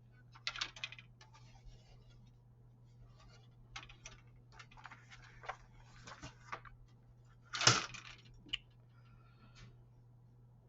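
Plastic model-kit parts and sprues being handled: scattered light clicks and rustles, the loudest cluster a little past halfway, over a faint steady low hum.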